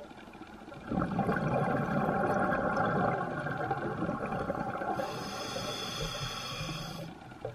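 Scuba diver breathing through an open-circuit regulator underwater: from about a second in, a long rush of exhaled bubbles, then near the end a brighter hiss as the regulator delivers the next breath.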